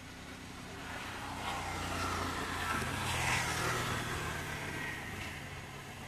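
A motor vehicle passing by: engine and road noise swelling to a peak about three seconds in, then fading away.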